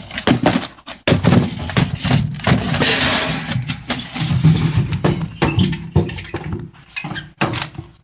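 Cardboard-framed pleated media filter being slid and pushed into a furnace's filter cabinet, with repeated scraping, rustling and knocking against the sheet-metal housing as it is worked tight into place.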